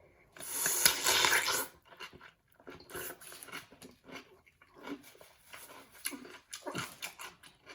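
A loud crunchy bite into a large, juicy pickle about half a second in, lasting about a second and a half, followed by wet, irregular chewing close to the microphone.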